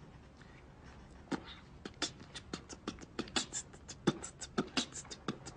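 Mouth beatboxing: faint room tone at first, then from about a second in a steady beat of sharp clicks and hissing hi-hat-like strokes that grows louder.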